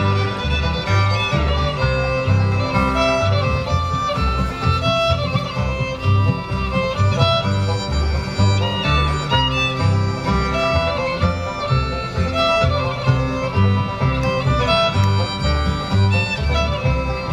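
Live bluegrass instrumental break: a fiddle takes the lead over rhythm guitar playing backup, with a steady alternating bass-note beat underneath.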